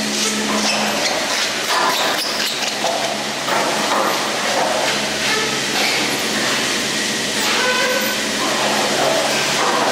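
Detachable chairlift machinery running: a steady hum with rolling, squeaking and clattering of wheels and rope, like rail-vehicle noise.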